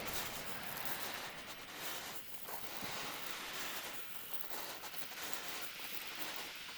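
Ocean surf washing in and drawing back: a steady hiss of breaking water that swells and eases a little.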